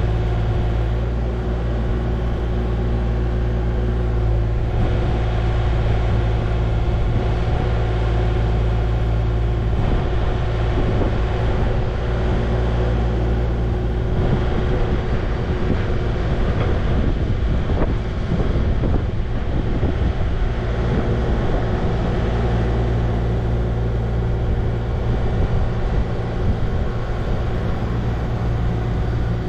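A motor vehicle running steadily, a low engine drone with a steady hum over it, rougher for a few seconds in the middle.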